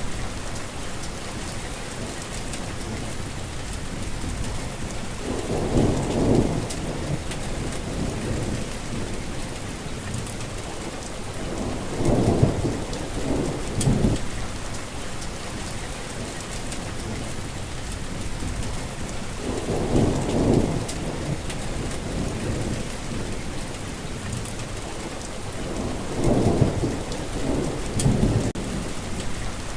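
Heavy rain falling steadily, with low rolls of thunder rumbling in every six seconds or so, several times over.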